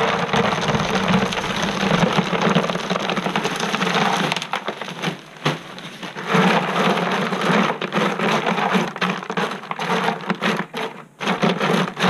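Lava rock poured from a plastic bag into a plastic half-barrel, the stones rattling down against the plastic for about four seconds. After a short lull there is more rattling and scattered clicks as the rocks are spread by hand.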